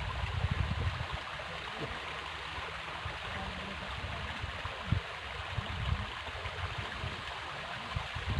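River water flowing steadily, an even rushing noise, with irregular low rumbles underneath.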